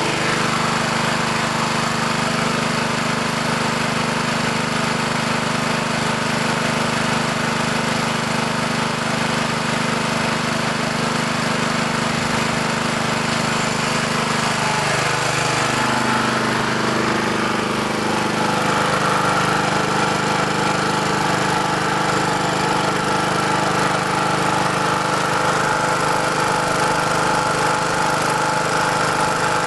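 Honda GX200 single-cylinder engine of a Simpson pressure washer running steadily. About halfway through, its note dips and then settles at a new steady pitch. The engine runs well, but the water pump builds no pressure.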